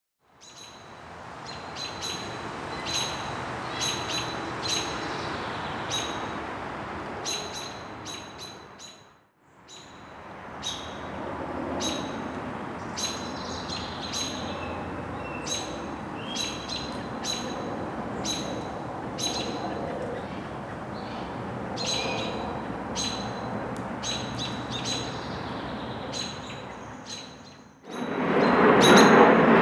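Small songbirds chirping: many short, repeated high chirps over a steady background noise. The sound fades out and back in about nine seconds in. Near the end a much louder, even rushing noise takes over.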